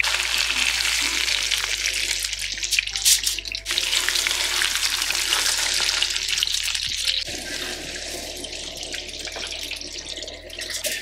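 Salmon fillets sizzling in a pan of hot oil and butter while they are seared and basted, with scattered pops and crackles; the sizzle eases about seven seconds in.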